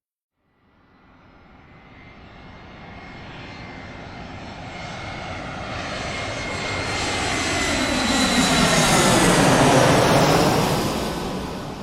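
Airplane flying over: silent at first, its engine noise swells steadily to a peak about ten seconds in, then begins to fade, with whining tones falling in pitch as it passes.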